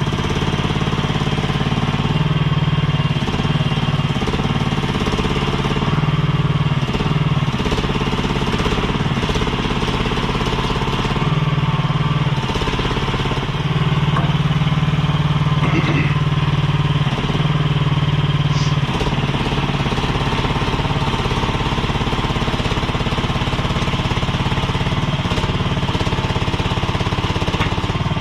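Chinese-made mini skid steer's engine running steadily, its note shifting a little now and then as the machine works.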